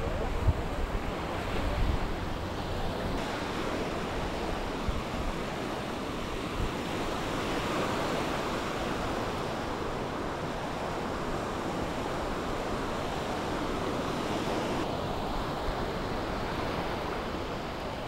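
Small sea waves breaking and washing up on a sandy shore, a steady surf wash.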